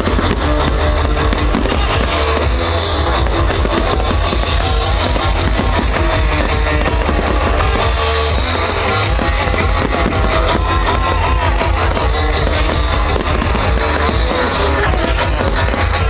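Loud guitar-driven rock music playing over a fireworks display, with firework bangs and crackle mixed through it.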